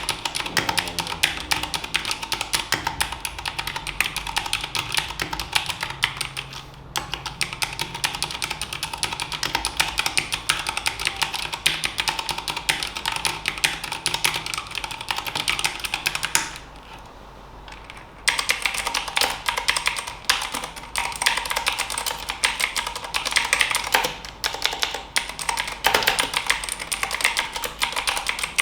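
Fast typing on a Keychron wireless mechanical keyboard: a dense, continuous run of key clacks, with a pause of under two seconds a little past the middle.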